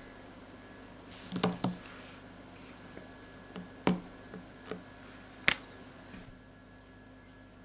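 About half a dozen sharp plastic clicks and taps from felt-tip markers being handled on a table: one marker is laid back in a row of others and another is picked up. A close pair of clicks comes about a second and a half in, and single clicks follow near four and five and a half seconds.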